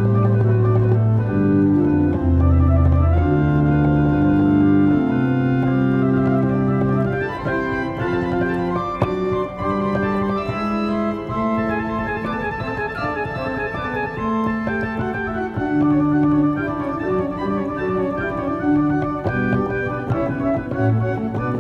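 Pipe organ with mechanical tracker key action being played from the keyboard: held chords and changing notes, with loud low notes for the first seven seconds or so, then lighter, higher-lying passages.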